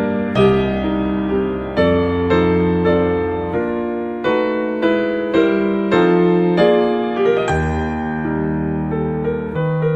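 Background piano music: notes and chords struck about once a second and left to ring.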